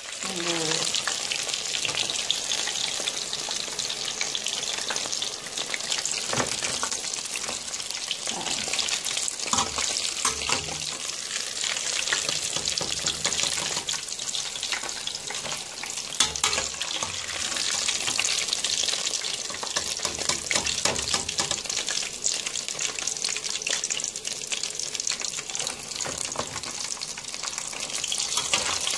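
Flour-coated chicken wings deep-frying in hot oil in a pot: a steady crackling sizzle, with a few light knocks.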